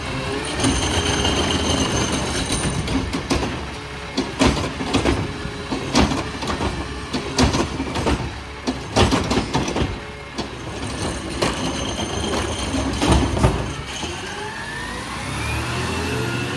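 Peterbilt 520 automated side-loader garbage truck working a cart: its engine runs while the hydraulic arm lifts and dumps a wheeled bin, with a string of sharp bangs as the cart is shaken out and trash drops into the hopper. Near the end the engine revs with a rising pitch as the truck moves off.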